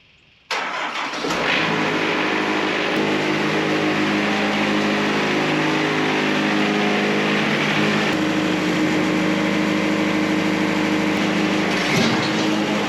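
Sawmill engine running steadily at speed, cutting in abruptly about half a second in.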